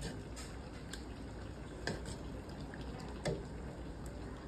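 Metal ladle scooping curry sauce in a large metal pot, the liquid splashing and dripping, with a few light clinks of the ladle against the pot, the loudest about three seconds in.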